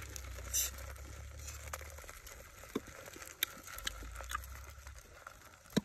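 Scattered small clicks and crackles of dung beetle shells being broken apart by hand, the pieces dropping into a mortar. Around seven separate ticks, over a low steady rumble.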